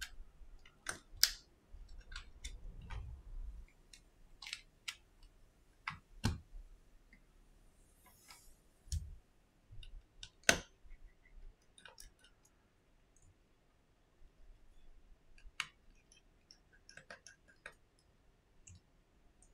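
Scattered small clicks and taps of metal repair tools and parts being handled on an opened iPhone 7, with a soft rustle of handling between two and four seconds in.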